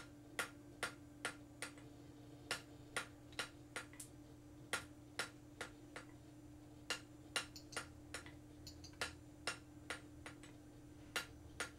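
Hand hammer striking a hot round steel bar on an anvil, rounding off a tapered end: short sharp, even blows a little over two a second, in short runs with brief pauses.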